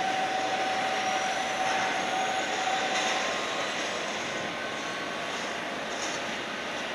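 Steady jet airliner engine noise, an even rush with a faint high whine that rises slowly in pitch; a steady tone in it stops about three seconds in.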